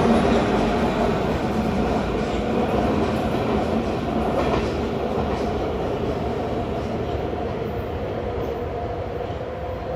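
MARTA rapid-transit train pulling away from the station, a steady whine over the rumble of its wheels on the rails, fading as it recedes. A couple of faint clicks come from the wheels passing rail joints.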